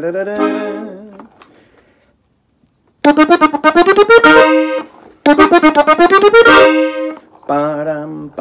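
Gabbanelli diatonic button accordion, tuned in F, playing ornamental runs (adornos) for a song in E-flat. A held chord dies away, a moment of silence follows, then two quick runs of notes climbing in pitch, and short, detached chords near the end.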